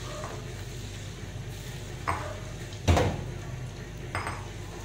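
Wooden spatula knocking against a wok while stirring diced carrots frying in oil: three short knocks about two, three and four seconds apart in, the middle one the loudest.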